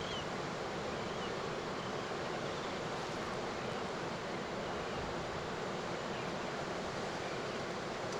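Steady wash of ocean surf breaking, mixed with wind on the microphone.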